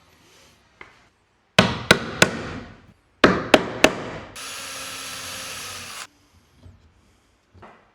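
Two groups of three sharp hammer strikes on wood, about a third of a second apart, typical of thin wooden strips being tapped into place. Then a steady hiss lasts just under two seconds.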